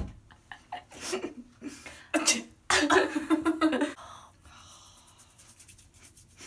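A person sneezing: a sharp burst about two seconds in, followed by a longer voiced outburst lasting about a second.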